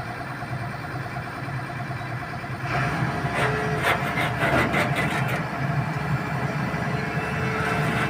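Heavy machine's engine running steadily, getting louder about two and a half seconds in, with a run of sharp knocks and a held whine over it in the middle.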